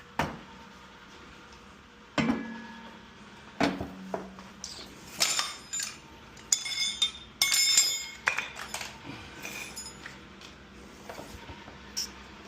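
Metal tools and washer parts being handled: a string of separate knocks and ringing metallic clinks, most of them bunched about five to eight seconds in.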